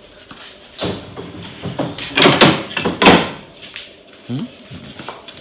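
A run of knocks and clatters from tools and a strip of wood being handled on a workshop bench, loudest in a cluster about two to three seconds in.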